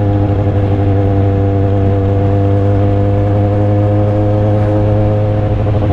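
Sport motorcycle's engine running at a steady, even speed while riding, with a constant engine note and some road and wind noise.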